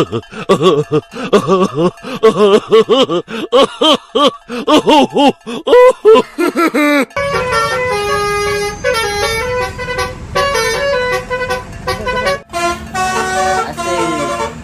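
A multi-tone 'telolet basuri' bus horn playing a tune: first a quick run of short notes that swoop up and down, then about halfway through, steadier held notes stepping through a melody.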